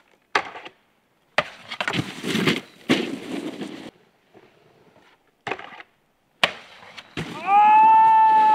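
Snowboard landing and scraping across hard-packed snow in several short, abruptly cut takes, each starting with a sharp hit of the board. Near the end, over a longer stretch of board scraping, someone lets out a long high-pitched whoop.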